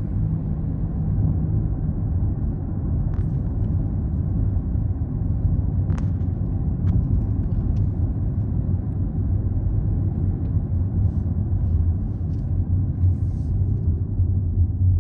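Road and engine rumble of a moving car, heard from inside the cabin, low and steady. A few faint clicks come through about three and six seconds in.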